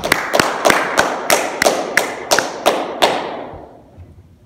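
A steady series of sharp percussive hits, about three a second, that stops about three seconds in and leaves a tail that fades out over about a second.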